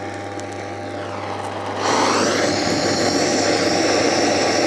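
Stalled dishwasher pump induction motor humming steadily on mains power with its rotor locked. About two seconds in, a gas blowtorch starts up with a loud, steady rushing hiss as the windings are heated.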